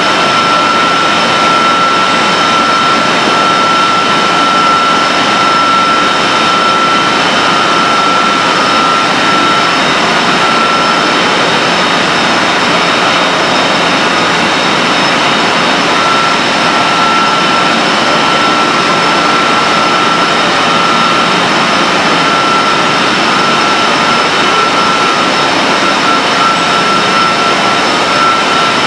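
Steady loud roar of boiler-house machinery running, with a constant high whine over it; the whine fades for several seconds about a third of the way in, then returns.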